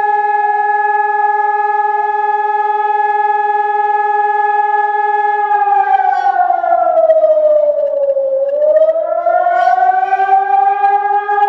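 Chilean fire-brigade alarm siren, the signal that calls out firefighters and is also sounded as a test. It holds a steady tone, then about halfway through slides down in pitch and climbs back to the steady tone near the end.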